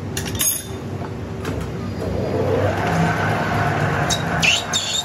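Large lathe running steadily while its cutting tool cuts a thread into the bore of a large plastic pipe. The cutting noise gets louder about two seconds in, and there are a few sharp clicks and a short squeal near the end.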